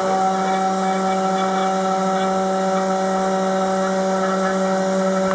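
A desktop CNC engraver's spindle motor running at a steady speed while its bit mills a pocket in hardwood. It makes an even, unchanging whine over a hiss.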